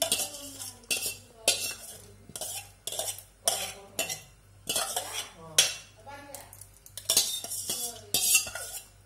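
A steel ladle scraping soaked dal out of a steel bowl and knocking against the rim of a pressure cooker as the dal is tipped in. The scrapes and clinks repeat about one or two a second.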